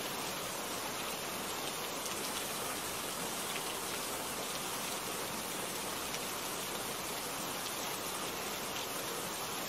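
Steady rain, an even hiss with a few sharper single drops standing out now and then.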